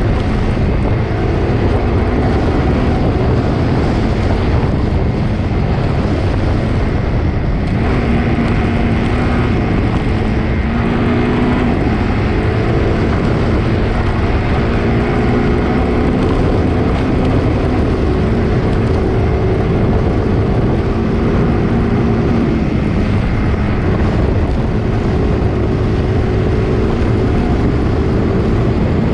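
A motor vehicle's engine running steadily while driving along a rough dirt road, with wind noise on the microphone and a slight rise and fall in engine pitch.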